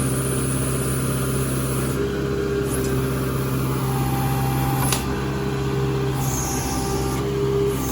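Engine of a digging machine running steadily at a constant speed, with one sharp click about five seconds in.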